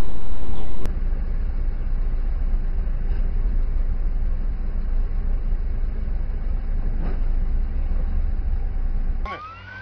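Steady engine and road rumble of a moving car, which changes abruptly about a second in. Near the end a police siren starts up with a rising wail.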